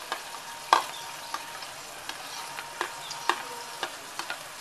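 A steel spoon tapping and scraping chopped onion and tomato off a plate into a metal pot: about half a dozen sharp clinks, the loudest about a second in with a short ring. Underneath, a faint steady sizzle of the hot oil tempering as the onion goes in.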